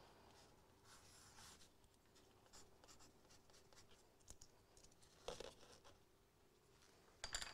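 Faint scratching of a pencil writing on a sheet of board, with a couple of short, slightly louder scuffs about five seconds in and near the end.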